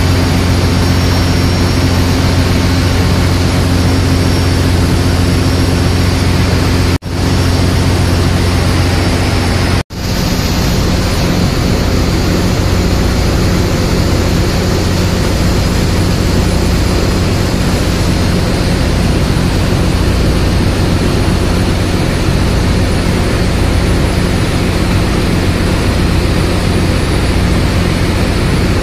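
Ship engine-room machinery running: a loud, steady drone with a strong low hum, briefly cut off twice near seven and ten seconds in.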